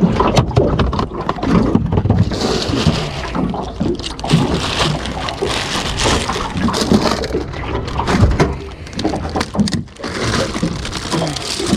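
Water sloshing and gurgling with many irregular small knocks and clicks, as on a small fishing boat.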